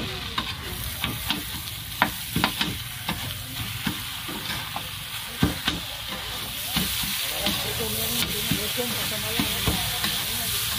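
Two metal spatulas clacking and scraping on a flat steel griddle as meat and vegetables are chopped and tossed, over steady sizzling. The sizzle grows louder about two thirds of the way through.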